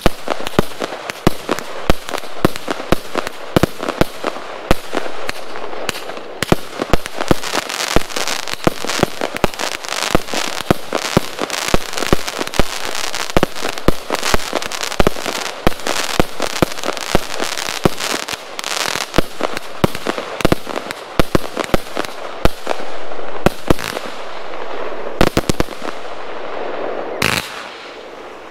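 A 65-shot brocade-with-crackle firework cake firing: a rapid, unbroken run of sharp shot reports and bursting shells, with crackling between them. It pauses briefly near the end before a last few shots.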